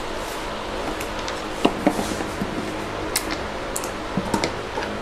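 Scattered light metallic clicks and taps as valve cover bolts are handled and pulled out of the engine by hand, a handful of separate ticks a second or so apart, over a steady low hum.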